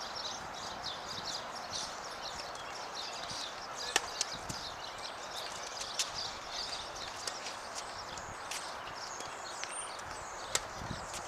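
Tennis ball hit back and forth in a rally: single sharp pops of racquet and bounce about four, six and ten and a half seconds in, the loudest about four seconds in, over a steady outdoor hiss with rapid high chirping.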